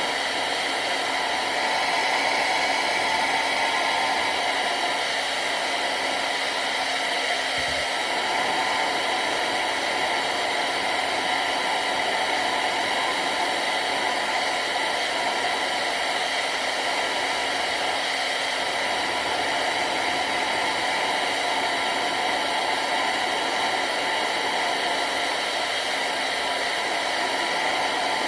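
Handheld hair dryer blowing steadily, a constant rushing hiss with a steady hum under it, held against a plastic decoy to heat and soften it.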